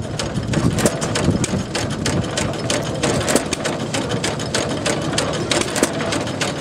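Small antique stationary gas engines running, a steady low chugging under a rapid, uneven clatter of sharp mechanical clicks.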